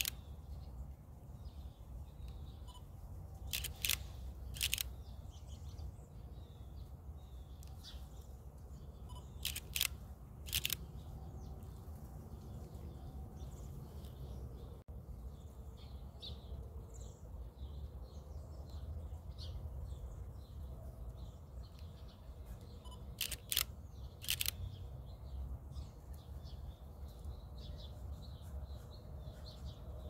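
Nikon camera shutter firing in three short bursts of two or three clicks each, about 4, 10 and 24 seconds in, over a steady low background rumble.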